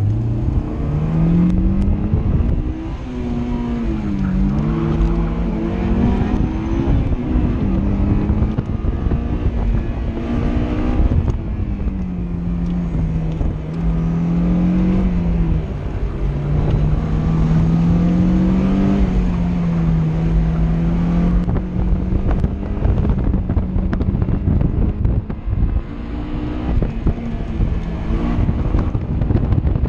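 Honda S2000 AP1's stock 2.0-litre F20C four-cylinder engine, heard from the open cockpit, running at full effort through an autocross course. Its pitch rises sharply at the launch just before the start, then climbs and falls again and again with throttle and gear changes, holding fairly steady for a stretch midway.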